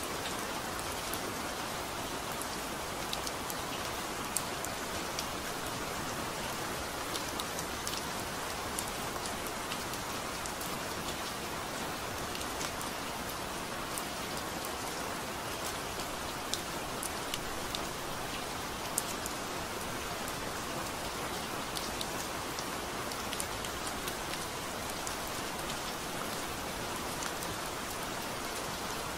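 Steady rain falling, a constant hiss with scattered sharp ticks of individual drops striking close by.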